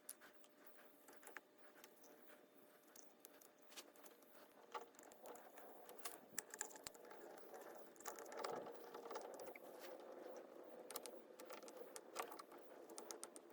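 Near silence, with faint scattered clicks and taps from small carburetor parts being handled.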